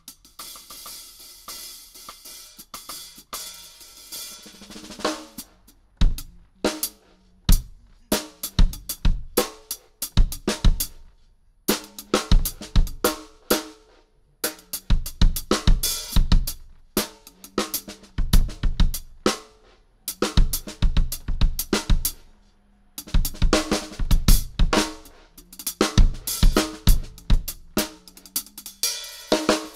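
Solo drum kit: a cymbal rings out over soft hits at first, then from about six seconds in the drummer plays loud snare and bass drum strokes with cymbal and hi-hat crashes, in fast, broken phrases with short pauses between them.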